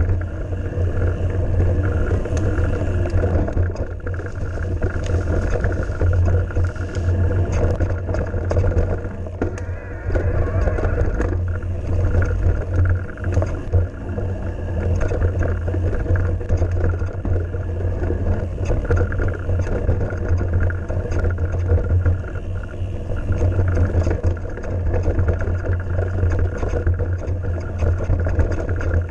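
Heavy wind rumble on the microphone of a camera mounted on a mountain bike riding fast over a dirt trail. Frequent small rattles and knocks come from the bike jolting over the rough ground.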